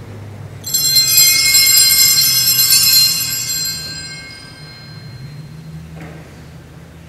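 Altar bells rung once about a second in, a sudden high shimmering ring that dies away over about three seconds, marking the priest's communion from the chalice.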